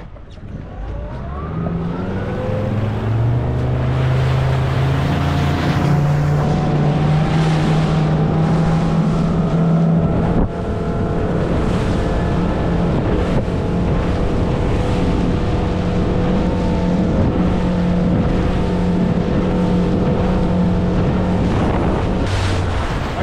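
Motorboat engine throttling up, its pitch rising over the first few seconds, then running steadily at speed over rushing wind and water, with a slight change in tone about ten seconds in.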